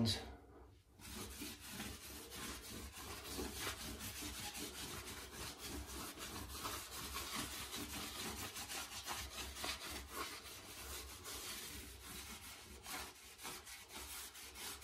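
A white rag rubbing back and forth over a river-rock pebble tile floor, wiping on stone sealer as a grout release before grouting. A continuous run of quick scrubbing strokes starts about a second in.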